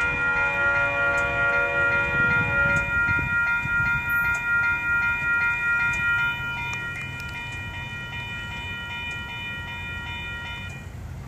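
Railroad grade-crossing warning bells ringing in rapid, even strokes. One set of tones stops about three seconds in, and the rest stop near the end as the gate arms go up. Under them is a low steady rumble and faint clicking from the switch mechanisms in the crossing's relay case.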